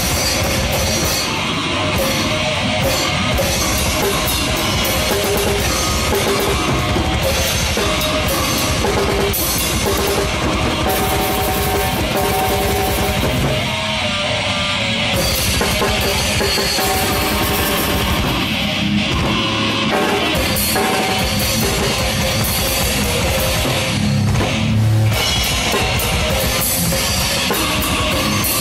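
Live death metal heard close up from beside the drum kit: an acoustic kit played without triggers, fast snare, kick and cymbal strokes, over distorted electric guitar and bass.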